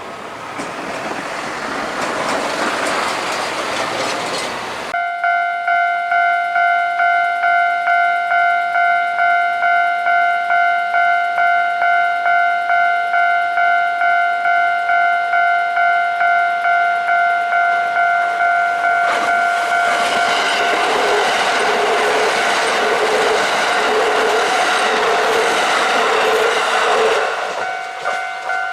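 Railway level-crossing warning bell starts abruptly about five seconds in, ringing a steady multi-tone ding about twice a second. From about twenty seconds a Kintetsu Nara Line train runs over the crossing, its wheels clattering rhythmically over the rail joints while the bell keeps ringing. Before the bell starts there is a broad rumble of road traffic.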